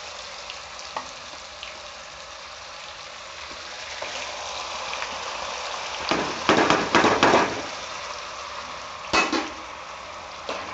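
Onion, ginger and garlic paste frying in hot oil in a kadhai: a steady sizzle that surges into loud spluttering crackles about six seconds in, with another short loud burst near nine seconds.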